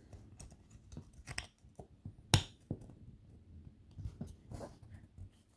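3D-printed PLA action-figure parts being handled and fitted together: scattered light plastic clicks and scrapes, with one sharper click about two seconds in.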